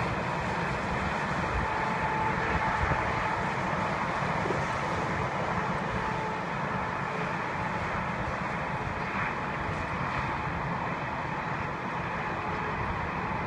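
Steady drone of highway traffic, cars and semis passing continuously.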